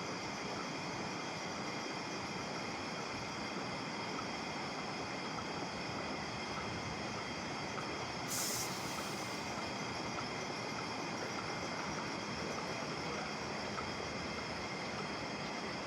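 Steady machinery noise with a few constant high tones, and a short high hiss about eight seconds in.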